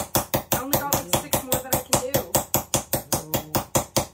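Rapid, even ball-peen hammer blows, about five a second, on a steel rose petal blank resting on a wooden stump. The blows stretch the middle of the petal and dish it into a bowl.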